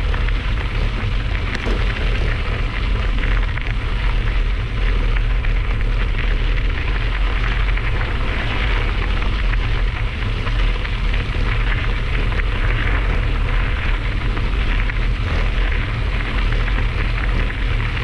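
Steady wind buffeting on the microphone of a camera on a moving bicycle's handlebars, a low rumble over the hiss of mountain bike tyres rolling on a gravel trail.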